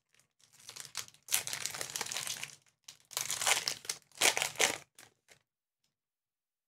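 Trading-card pack wrapper being torn open and crinkled in several irregular rustling bursts; the rustling stops a little over five seconds in.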